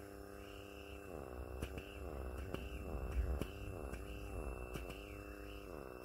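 Handheld pore vacuum blackhead remover running with a buzzing motor whine that dips in pitch and recovers again and again, with a few small clicks, as the suction nozzle catches and loses its seal on the skin of the nose.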